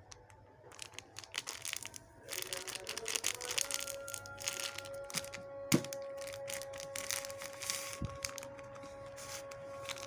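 Plastic crinkling and crackling as a squishy is squeezed and handled, starting about two seconds in, over a steady held musical tone.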